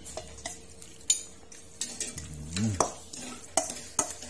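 A metal ladle stirring wet minced buffalo meat in a stainless steel mixing bowl, scraping and clinking against the bowl's side, with several sharp clinks spread through.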